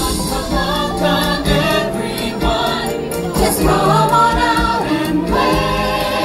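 Castle stage show's music with a group of voices singing, played over the show's speakers.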